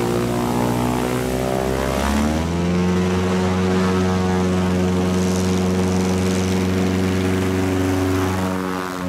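Light single-engine piston airplane's engine and propeller running at high power as it accelerates along a gravel bar. The note climbs about two seconds in as the revs come up, holds steady as the plane comes closer, and drops in pitch near the end as it passes close by.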